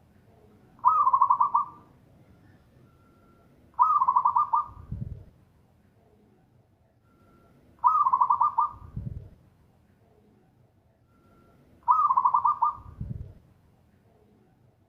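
Zebra dove (perkutut) singing: four loud phrases about four seconds apart, each a fast run of staccato coos followed by a low, deep note.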